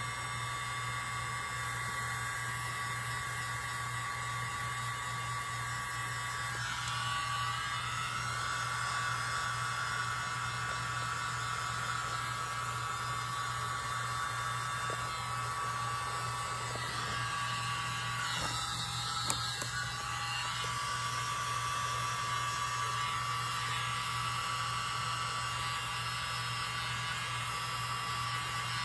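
Steady whir and hum of a small electric motor running throughout, with one short click about nineteen seconds in.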